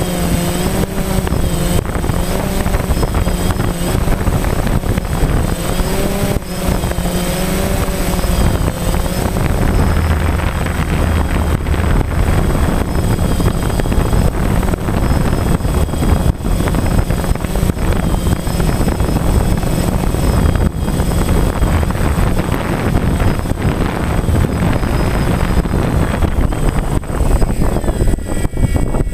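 DJI Phantom quadcopter's electric motors and propellers whirring steadily, heard from its own onboard camera, with wind rushing over the microphone and the motor whine wavering in pitch as it manoeuvres. Near the end it sets down in the grass and the whine changes pitch.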